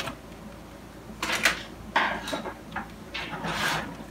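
Plastic scrapes and knocks of a laser printer's paper cassette and housing being handled, in several short bursts starting about a second in.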